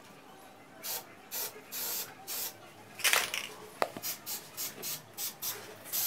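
Aerosol spray-paint can hissing in a quick series of short bursts, about two or three a second. Some are brief puffs and the longest runs about half a second.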